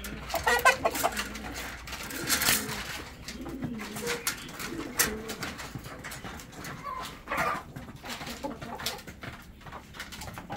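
Doves cooing in low, repeated calls, with clicks and knocks from chain-link pen wire being handled.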